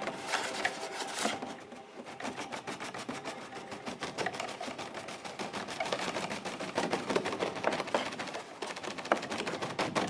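Fast, irregular stream of dry taps and clicks, unpitched, played as a percussive extended technique in a contemporary chamber piece for flute, viola and harp.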